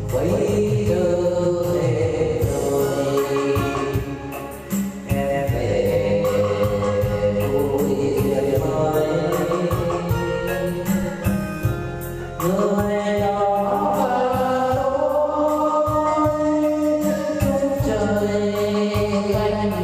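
A voice singing a slow, drawn-out melody over instrumental backing.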